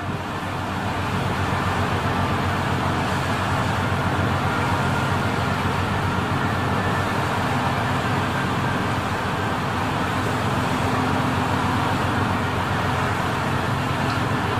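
Boat engines droning steadily under a rushing wash of water and wind, fading in over the first second.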